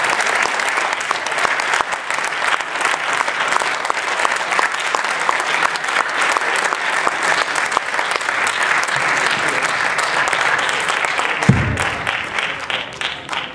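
Audience applauding steadily, thinning out into scattered separate claps near the end. A single low thump is heard shortly before the applause dies away.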